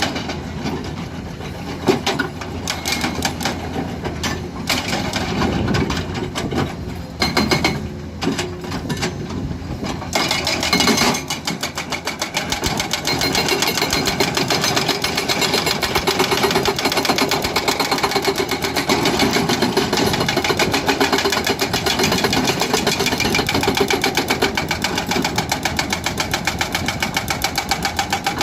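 Excavator-mounted hydraulic breaker hammering rock in rapid, steady blows, over the excavator's diesel engine. For the first ten seconds or so the sound is more irregular, with scattered knocks; about eleven seconds in the even, fast hammering takes over and runs on.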